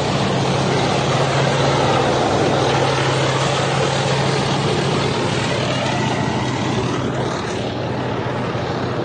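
Heavy military vehicle, likely a tank, running steadily: a low engine drone under loud rushing noise, easing slightly near the end.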